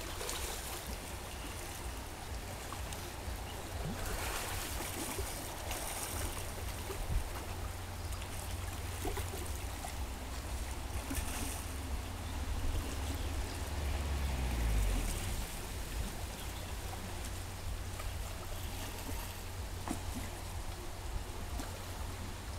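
Shallow creek running over a gravel bed, a steady rush of water, with a low rumble underneath that swells around the middle.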